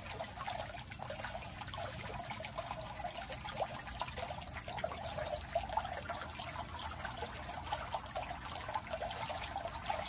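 Swimming pool water trickling and splashing steadily, a continuous patter of small splashes.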